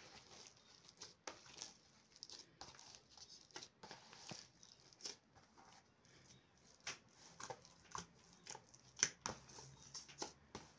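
Hands kneading a coarse corn-flour dough in a plastic bowl: faint, irregular squishing and soft pats.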